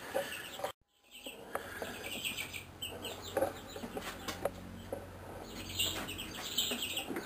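Faint clucking of chickens over a low steady hum, with a brief dropout to silence about a second in.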